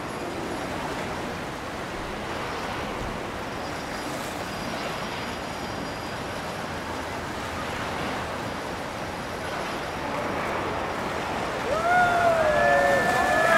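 Steady rushing noise of a motorboat running through the water. Near the end, loud voices call out with sliding pitch.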